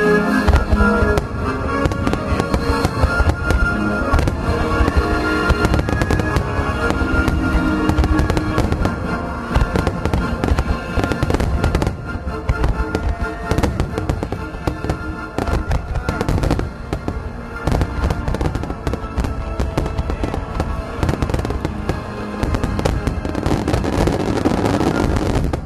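Dense barrage of firework shell bursts and crackling from a star mine, many bangs in quick succession, with music playing underneath.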